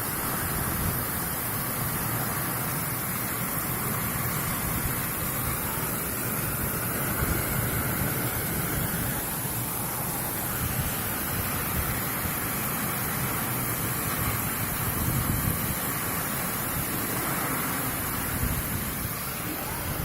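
Heavy rain pouring steadily, with wind buffeting the microphone in a gusty low rumble.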